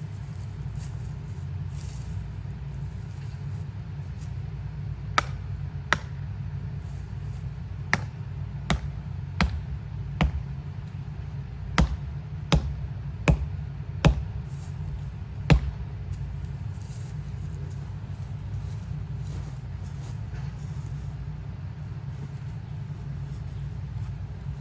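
A steady low rumble, with a run of about ten sharp knocks a little under a second apart through the middle stretch; the last knock is the loudest.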